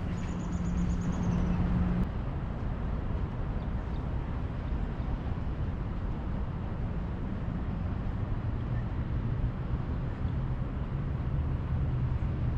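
An engine's steady hum over a low rumble. The hum cuts off suddenly about two seconds in, and a lower hum comes in later.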